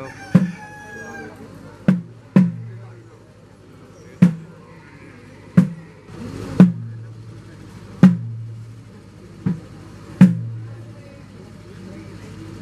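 Chenda drums struck in slow, uneven single beats, mostly one every second or so, over a steady low hum.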